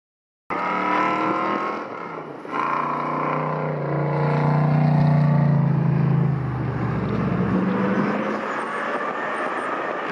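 Off-road race vehicle engine running hard at speed, its pitch rising and falling as it revs up and down. It cuts in suddenly about half a second in.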